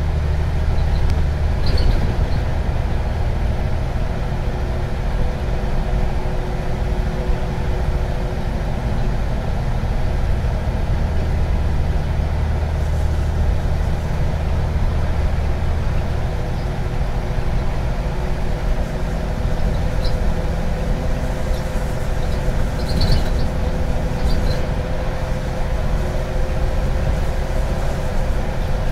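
Interior sound of a 2005 Scania OmniCity CN94UB single-deck bus under way: a steady low drone of engine and drivetrain with a steady whine, the low rumble easing a little about halfway through. Small rattles or clicks from the fittings come about two seconds in and several times later on.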